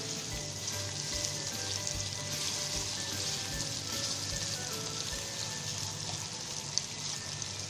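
Diced potatoes frying in hot oil in a pan, a steady sizzle.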